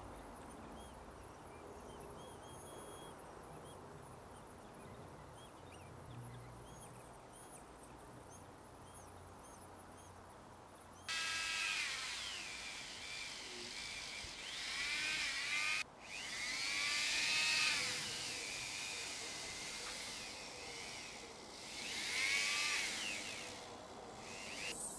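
A small rotary multi-tool spinning a wire wheel, brushing rust off a steel tie rod's threads and the recess in the hub. It is a high whine whose pitch sags and recovers again and again as the brush is pressed onto the metal. It is faint for the first ten seconds or so and louder from about eleven seconds in, with a brief dropout near sixteen seconds.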